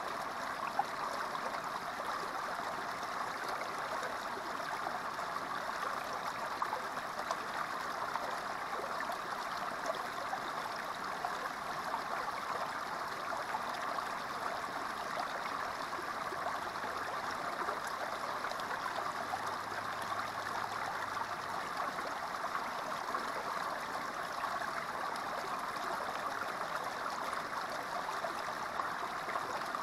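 Small creek water spilling over a rock ledge into a shallow pool, a steady babble and trickle.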